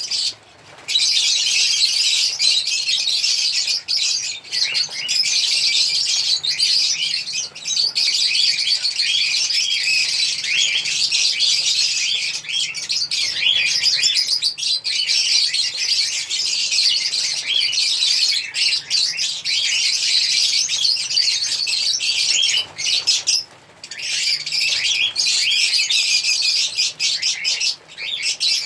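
Lovebirds chirping and chattering continuously in dense, high-pitched overlapping calls, with two brief pauses, one near the start and one about three-quarters of the way through.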